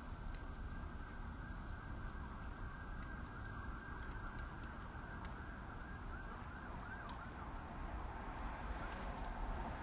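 Steady street traffic noise with a faint emergency vehicle siren whose pitch wavers up and down about two-thirds of the way through.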